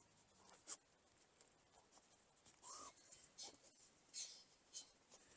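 Faint, brief scratchy scuffs and rustles, about five of them, the loudest about four seconds in, over near silence.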